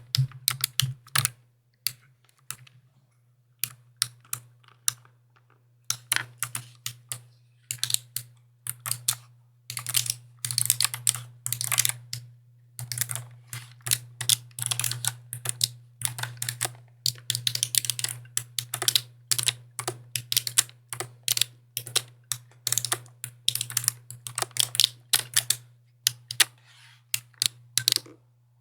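Typing on a mechanical keyboard: clicky keystrokes in quick, irregular runs with a couple of short pauses, over a steady low hum.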